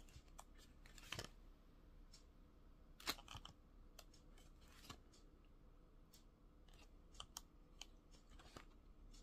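Faint rustles and soft flaps of paper as the sheets of a scrapbooking paper pad are turned one after another, with the most distinct flaps about one and three seconds in.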